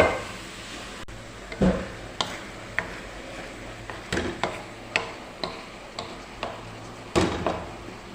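Kitchen utensils tapping and clinking against cookware in an uneven run of sharp knocks, about two a second, with a few heavier thumps among them.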